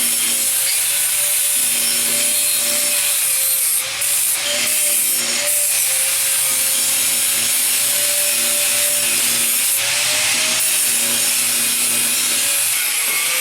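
Angle grinder working on steel: a loud, steady hiss with the motor's whine wavering in pitch as the load changes, easing off briefly twice about four seconds in.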